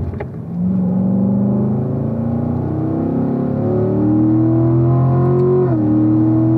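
Corvette V8 engine under full-throttle acceleration in third gear, heard from inside the cabin. The note rises steadily in pitch, then drops sharply near the end with the upshift to fourth and starts climbing again.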